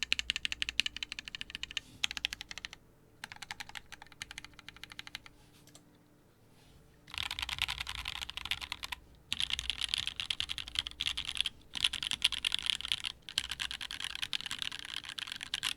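Keycult No.1/65 mechanical keyboard being typed on, with lubed Tealios linear switches on a polycarbonate plate and GMK keycaps. Runs of keystrokes come in bursts, pause for about a second and a half a little past the middle, then return as faster, denser typing broken by short gaps.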